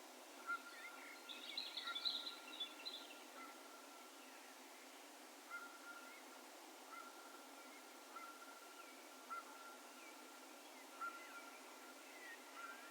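Faint, distant bird calls echoing: a short whistled note repeated about every second or so at the same pitch, with a brief flurry of higher chirps about one to three seconds in, over a steady hiss.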